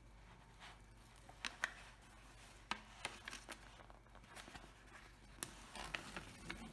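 Paper cover being peeled off the sticky adhesive of a diamond painting canvas and the stiff canvas being handled: quiet rustling with scattered sharp crinkles and crackles.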